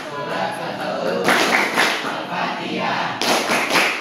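A group of girls chanting in unison while clapping their hands in rhythm, a clap-along memorization chant, with louder bursts of clapping and voices about a second in and again near the end.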